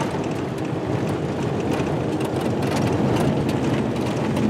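Truck driving along a dirt road: steady engine and tyre noise with scattered small knocks and rattles.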